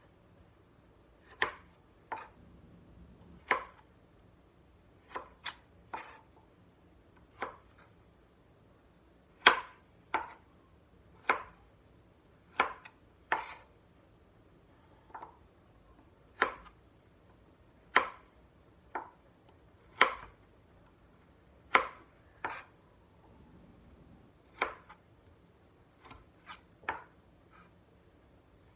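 Kitchen knife slicing baby carrots, one sharp chop at a time, at an unhurried, uneven pace of roughly one cut every second or two.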